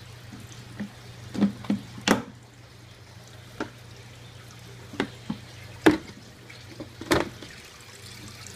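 Water running steadily through an aquaponics radial flow filter, fed from the solids lift, over a steady low hum. About eight sharp knocks and clicks stand out, the loudest about two, six and seven seconds in.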